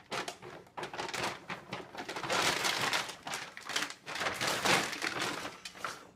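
A large plastic dog-food bag crinkling and scraping along a wooden floor as a puppy with its head stuck inside it walks around, an irregular rustle that swells and fades.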